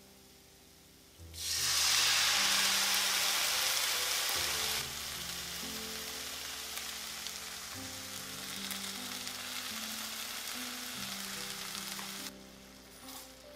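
Rice vinegar and mentsuyu poured into a hot frying pan of mayonnaise-fried chikuwa slices, sizzling. The sizzle starts about a second and a half in and is loudest for the first few seconds. It then settles to a steadier, slightly quieter sizzle and cuts off near the end.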